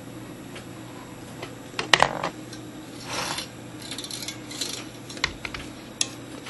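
Wooden clock movement being taken apart by hand: sharp clicks and a brief clatter of wooden parts about two seconds in as the wooden plate comes off the wheels, then a short rustle and a few scattered light knocks.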